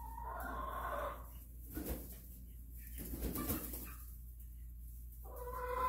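Silkie chickens calling: a drawn-out pitched call in the first second or so, a few softer sounds, then another longer, steady-pitched call starting near the end.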